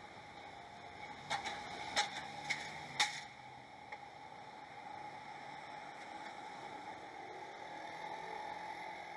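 Rail-yard ambience through an outdoor live-camera microphone: a steady hiss with a faint hum. About a second in come four sharp clacks roughly half a second apart, then a single weaker click.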